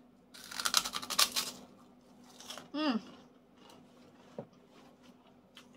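Crisp crunching of a krupuk cracker being bitten and chewed, loudest in the first second and a half, followed by a short falling "mmm" from the eater.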